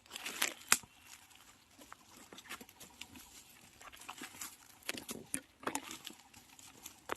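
Irregular crackling and rustling of dry leaves, twigs and bamboo stems being pushed through and stepped on in undergrowth, with a few sharper snaps.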